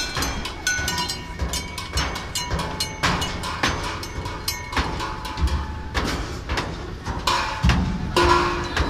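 Improvised percussion struck on the steel border wall and metal trash bins: a dense, irregular run of knocks and clacks, some leaving short ringing tones, with heavier hits near the end.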